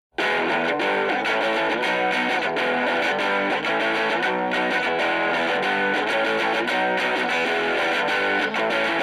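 Background music: a rock track with an electric guitar playing a busy riff, starting suddenly out of silence.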